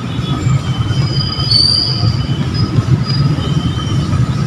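Street traffic rumbling steadily, with several short high-pitched squeals over it, the loudest about one and a half seconds in.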